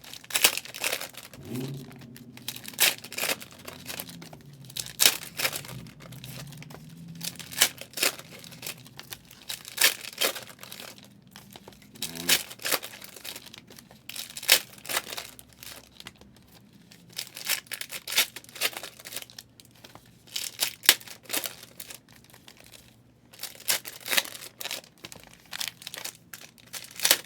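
Trading card pack wrappers being crinkled and torn open by hand, a string of irregular sharp crackles and rips.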